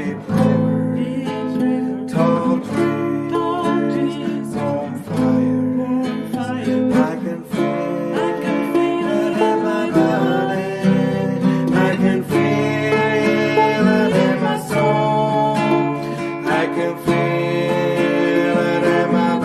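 Music: strummed acoustic guitar with a voice singing over it.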